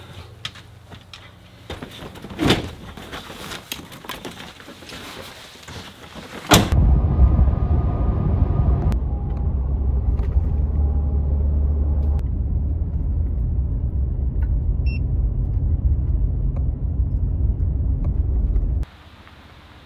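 A few knocks and thumps as a dog climbs into a pickup truck's bed, then, about six and a half seconds in, the steady low rumble of the pickup driving on a paved road, heard from inside the cab. The rumble cuts off suddenly near the end.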